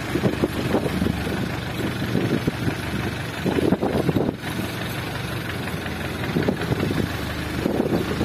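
Fishing boat's engine running steadily at trolling speed, a low hum under rushing wind and water noise that swells briefly about halfway through.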